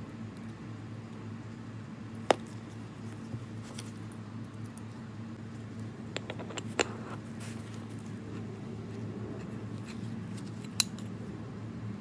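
Small metal clicks and taps as lathe compound-rest parts and small hand tools are handled on a bench. There is one sharp click about two seconds in, a short cluster of clicks around six to seven seconds, and another sharp click near the end, all over a steady low hum.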